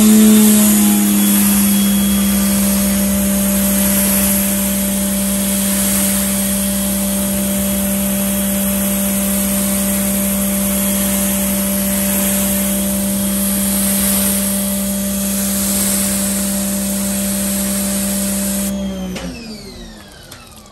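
Electric pressure washer running while it sprays a water rinse over a car's hood: a steady motor-and-pump hum over the hiss of the spray. It spins up at the start, and near the end the spray cuts off and the motor winds down.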